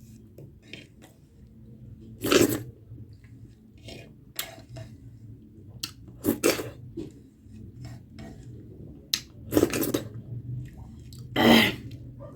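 Eating at a meal of nettle soup and maize rice: a utensil knocks and scrapes against dishes in short sharp bursts every couple of seconds, with chewing between them.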